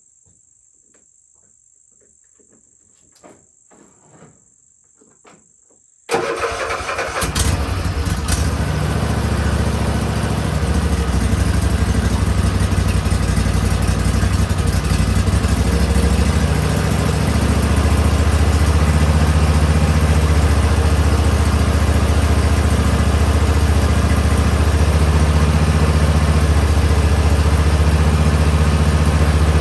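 Husqvarna riding lawn mower's engine starting suddenly about six seconds in, after a few faint clicks, then running steadily and growing a little louder as it settles.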